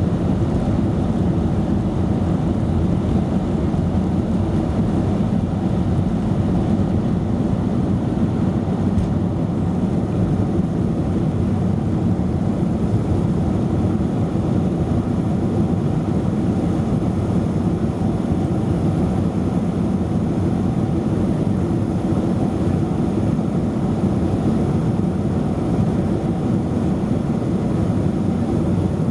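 Cabin noise of a Boeing 737-200 in flight: the Pratt & Whitney JT8D-17 turbofans and the airflow over the fuselage make a steady, low-pitched rushing drone that does not change.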